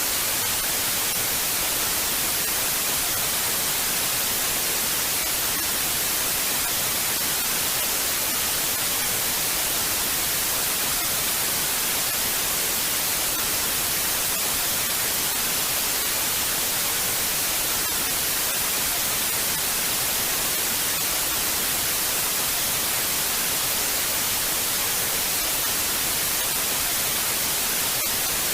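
Analog television static: a steady hiss of white noise with no tones in it, at an even level throughout, strongest in the high frequencies.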